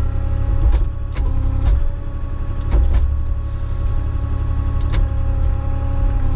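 Avant 860i compact loader's diesel engine running at a steady speed, with a heavy low rumble and several sharp clunks spread through, about a second or two apart.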